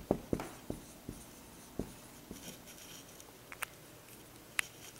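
Dry-erase marker writing on a whiteboard: a quick run of short taps and strokes in the first two seconds, then a few faint clicks.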